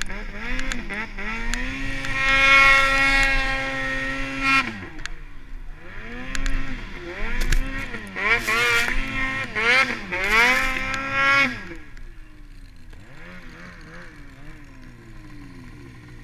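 Snowmobile engine working through deep powder. It is held at high revs for a few seconds, drops, then is revved up and down several times, and eases off to a lower, quieter running for the last few seconds.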